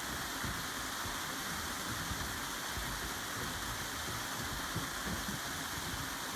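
Steady rush of flowing water, an even hiss with no rhythm, cut off abruptly at the very end.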